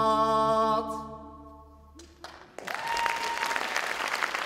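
The last held chord of a stage musical number, voices over the accompaniment, breaks off about a second in. After a short pause an audience bursts into applause, with a long whistle over it.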